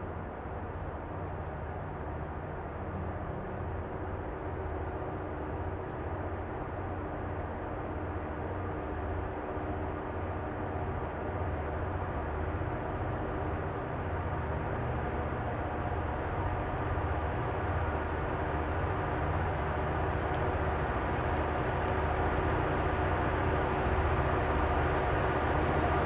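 Distant approaching EMD SD40-2 diesel locomotives, their 16-cylinder two-stroke engines running as a steady low drone that grows gradually louder.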